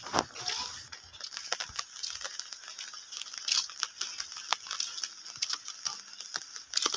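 Footsteps in rubber flip-flops on a concrete road: irregular slaps and scuffs, after a short rustle at the start.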